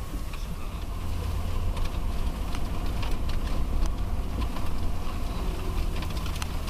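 Car engine and road noise heard from inside the cabin while driving, a steady low rumble with scattered light clicks and rattles over it.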